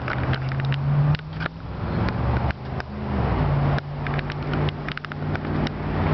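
A vehicle engine running with a steady low hum whose pitch rises briefly and settles again around three seconds in, under an even outdoor noise and many small clicks.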